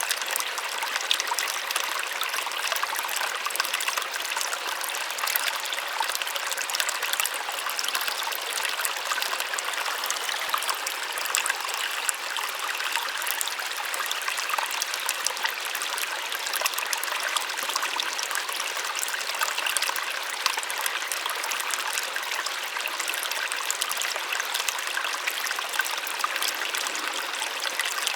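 Small waterfall splashing steadily, a soft, even rush of falling water with many small splashes and little deep rumble.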